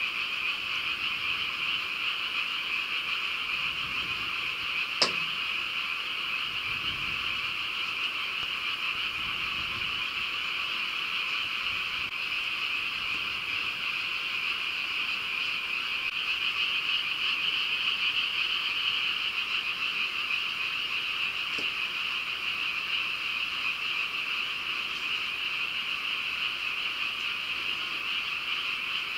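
Steady chorus of many frogs calling, with one sharp click about five seconds in.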